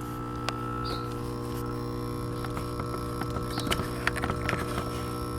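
Small electric air compressor for an air mattress running with a steady hum, just repaired and working. A few light clicks and taps come in the middle.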